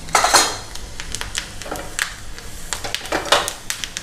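Tempering seeds and dals popping and crackling in hot oil, with many quick sharp pops and a louder sizzling burst just after the start.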